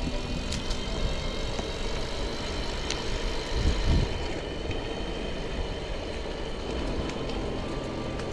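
Motorcycle engine running at a steady pace under road and wind noise, with a brief low rumble swelling about three and a half seconds in.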